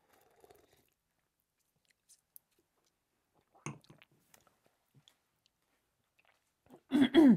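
Quiet sipping of a slushy blended-ice cocktail, soft mouth sounds of tasting, with a light knock a little over halfway through as a glass is set down on the counter. A brief voiced tasting sound comes near the end.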